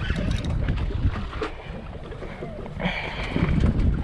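Wind buffeting the microphone on a boat at sea while a Penn spinning reel is cranked against a heavy hooked fish, with a brief whine about three seconds in.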